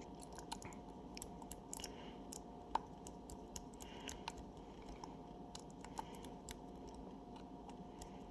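Faint scattered clicks and ticks of a screwdriver turning the small screws of an RC4WD 1.0-inch stamped steel beadlock wheel, with one sharper click about three seconds in.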